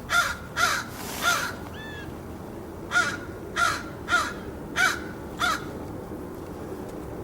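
Crow cawing loudly in two runs: three caws about half a second apart, a brief pause with one faint rising note, then five more caws at the same quick pace.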